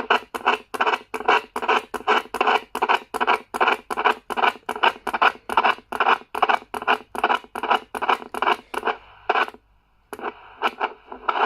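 Receiver hiss from a Stalker IX CB radio's speaker cutting in and out about four to five times a second as its mode switch is worked: the switch is dicky from long disuse, its contacts dropping in and out, which should clear up with use. The pulses break off briefly near the end, then a few more come.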